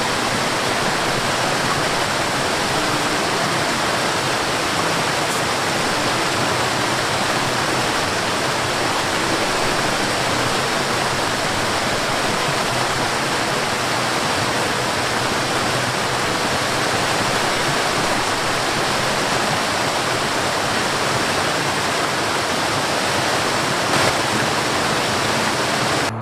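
Waterfall: water cascading down rocky steps with a steady, even rush.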